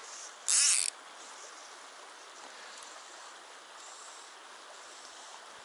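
Shallow mountain stream running steadily over rocks. About half a second in there is one brief, loud hiss.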